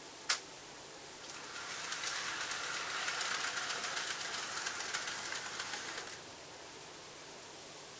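A single sharp click, then an N gauge model train running on the layout's track: a light whirring clatter of small wheels and motor. It starts about a second in, runs for about five seconds and stops.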